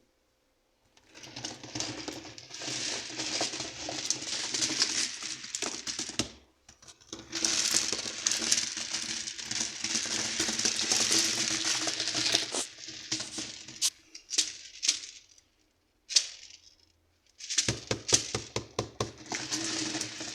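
Crinkling and rattling of plastic being handled, full of small clicks, in several stretches with brief pauses.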